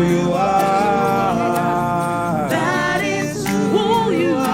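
Gospel worship music: a singer holding long wavering notes and gliding through melodic lines, with no clear words, over sustained accompaniment, and light high ticks keeping time.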